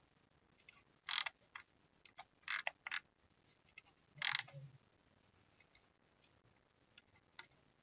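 Computer mouse clicking: a few short, sharp clicks at irregular intervals, with a brief low sound joining one of them about four seconds in.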